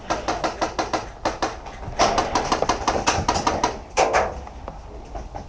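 Rapid airsoft gunfire on full auto: two strings of quick sharp cracks at about eight a second, the second string ending in one louder crack.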